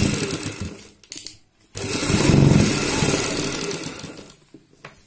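Sewing machine running in two stitching runs, stopping about a second in and starting again shortly after, as a seam is sewn through fabric and double piping along a kurti slit. The second run fades out near the end, followed by a single click.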